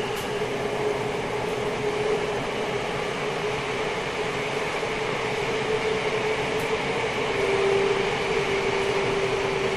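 Running sound of a Tokyo Metro 10000 series train with a Mitsubishi IGBT VVVF inverter, heard from inside the car in the subway tunnel. A steady rumble carries a steady hum, which grows a little louder about seven and a half seconds in.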